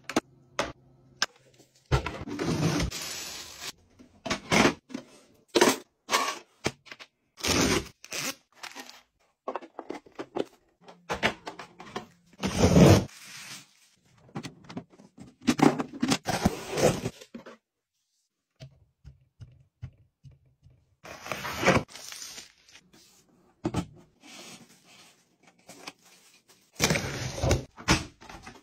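Handling noises from plastic household storage items: an irregular string of knocks, clicks and scrapes in short clusters, with a brief silence partway through.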